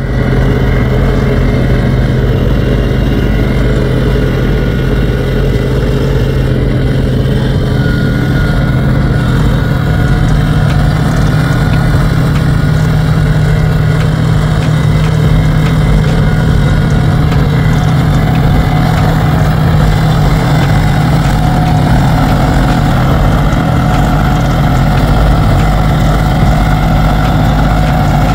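Wacker Neuson RD12 ride-on tandem drum roller's diesel engine running steadily with a low hum as the roller travels over crushed recycled asphalt, compacting it.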